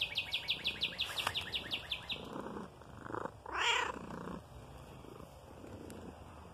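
Domestic cat purring close to the phone, with a loud rush of fur brushing the microphone about three and a half seconds in. For the first two seconds a bird sings a fast, even trill of high notes.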